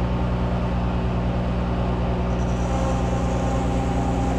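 Monarch 10EE toolroom lathe running steadily, its motor and drive giving a constant hum. A faint high-pitched whine joins about two seconds in.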